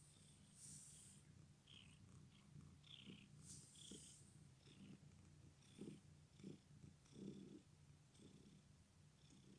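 Ginger domestic cat with an injured, bandaged front leg purring faintly and steadily. A few brief soft rustles sound over the purr.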